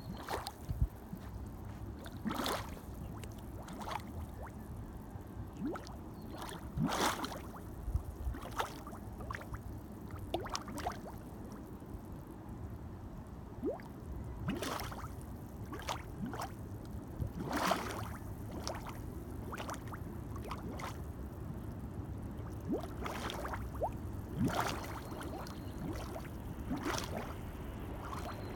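Gas bubbles bursting through the liquid mud of a mud volcano vent: wet plops and gloops at irregular intervals, about one every one to three seconds, over a low steady background.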